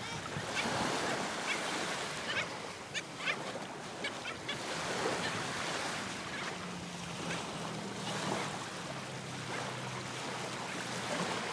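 Small surf washing and breaking on a sandy beach: a continuous wash of water with short crackling splashes. A faint low steady hum joins in during the second half.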